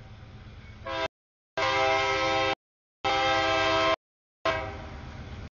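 Freight locomotive's multi-chime air horn sounding for a grade crossing: it comes in about a second in, then gives two loud blasts of about a second each, and a last note that fades near the end, over the low rumble of the train. The sound drops out completely in short gaps between the blasts.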